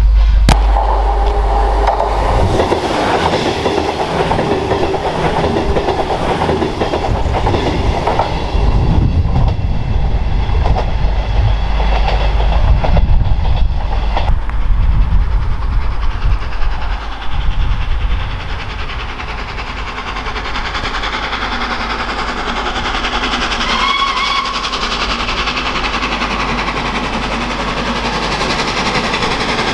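LNER Peppercorn A1 Pacific steam locomotive 60163 Tornado working at the head of its train, its loud, uneven exhaust and running noise filling the first half. The sound then changes to a steadier, quieter distant rumble as it approaches, with one short whistle blast late on.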